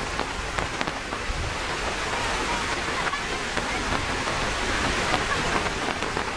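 Steady rain falling, a continuous hiss with scattered small drop ticks.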